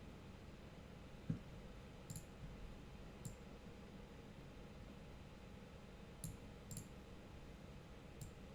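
Computer mouse clicking, a handful of single clicks spaced irregularly over several seconds.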